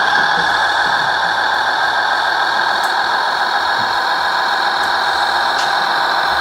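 Radio-controlled model truck running: a steady mechanical whir with a few faint ticks.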